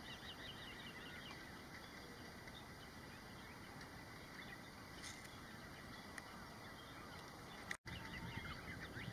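Faint open-air ambience with distant small birds calling in runs of quick, high chirps near the start and again near the end. The sound cuts out for an instant shortly before the end.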